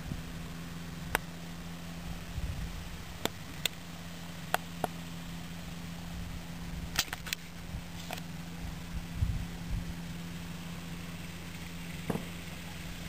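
Powered hang glider trike engine running at a steady speed some way off, a constant even hum. A few sharp clicks are scattered over it.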